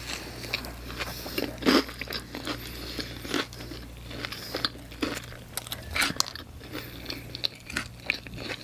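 Close-up eating sounds: crunchy Hot Cheetos on pizza being chewed, with a run of irregular crunches and wet mouth clicks.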